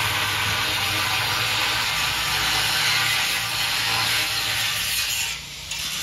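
Handheld angle grinder running against the steel of an iron gate, a loud steady grinding whine. It eases off briefly about five seconds in, then bites again.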